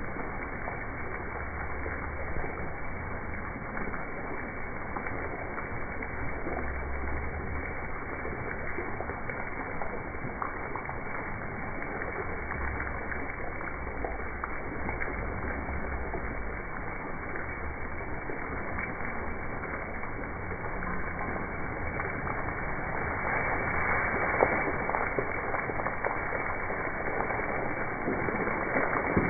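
Fountain water spraying over an elephant figure and splashing steadily into the pool, a little louder near the end, with a low rumble coming and going.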